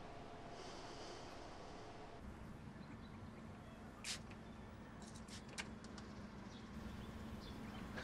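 Faint quiet ambience that changes about two seconds in to a low steady hum, with a few short, sharp high-pitched ticks near the middle.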